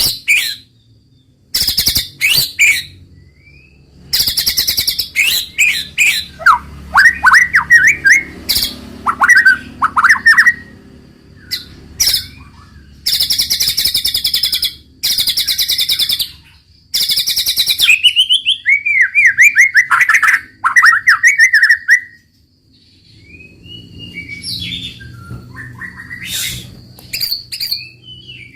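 White-rumped shama (murai batu) singing at full volume. Loud, harsh, rapid-fire bursts alternate with runs of quick, descending whistled notes.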